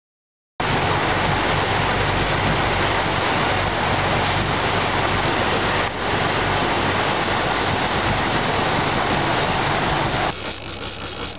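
Sport-fishing boat underway: a steady low engine drone under a loud rush of wake water and wind on the microphone. It starts suddenly after a moment of silence and drops to a quieter take of engine and water noise near the end.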